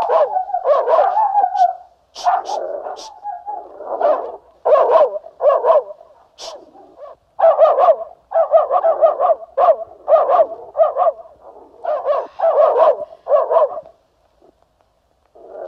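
A dog barking repeatedly in quick runs of barks with short pauses, stopping about fourteen seconds in.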